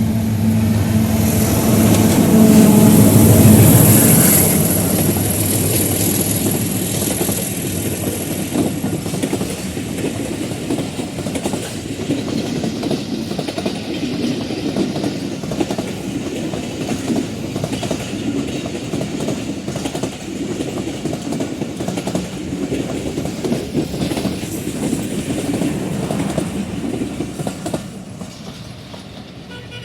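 Passenger train pulling out behind a PHA-20 diesel-electric locomotive. The locomotive's engine hum is loudest a few seconds in, then the coaches roll by with wheels clattering over the rail joints, fading near the end.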